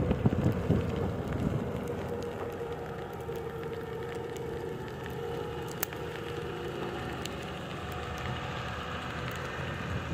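Hyundai HL740 wheel loader's diesel engine running while it pushes snow with a plow box, with a steady whine over a rough noise, louder for about the first second.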